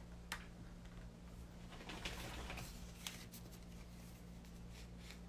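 Quiet room with faint rustling and a couple of soft clicks over a steady low hum.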